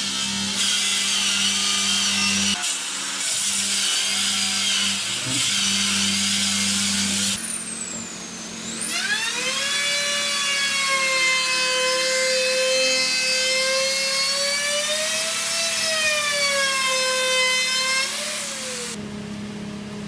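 Electric power saw cutting MDF sheet: rough cutting noise over the motor's steady hum, broken off briefly a few times, for the first seven or so seconds. After that comes a steady high motor whine whose pitch dips and rises for about ten seconds, then stops.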